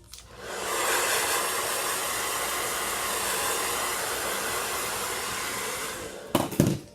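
Hand-held blow dryer switched on, running steadily for about five seconds, then switched off. Two or three short knocks follow near the end.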